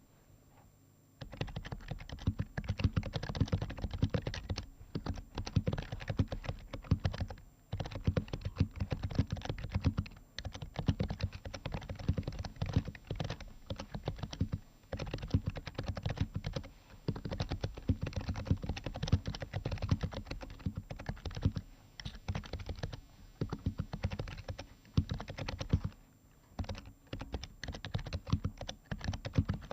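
Typing on an HHKB Pro 2 Type S keyboard, its Topre electrostatic capacitive switches fitted with BKE Redux light domes. A fast, continuous run of keystrokes starts about a second in, broken by a few brief pauses.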